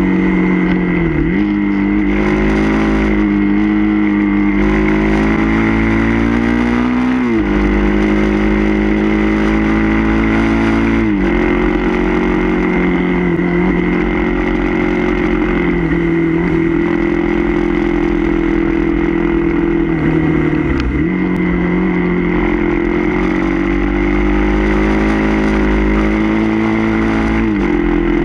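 Suzuki DR-Z400 supermoto's single-cylinder four-stroke engine pulling hard uphill, heard from on the bike. The engine note holds steady for long stretches and five times dips sharply and climbs back, as through gear changes and throttle changes in the bends.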